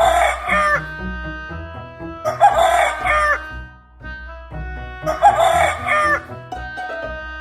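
Rooster crowing three times, about two and a half seconds apart, over background music.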